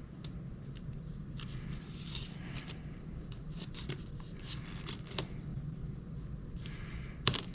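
Light clicks and short rustles of small engine parts and a gasket being handled and fitted on a workbench, with one sharper click near the end, over a steady low hum.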